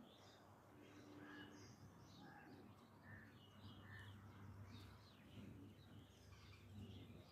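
Faint bird chirps, scattered short calls over a quiet background.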